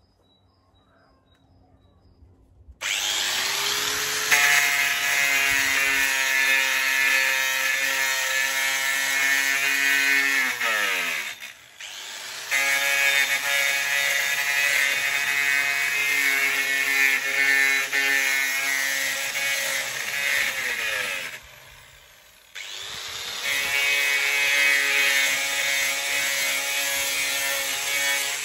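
Corded angle grinder grinding rust and flaking paint off a steel post: it spins up with a rising whine about three seconds in and runs with a high, steady grinding sound. Twice it winds down and stops for about a second, then spins up again.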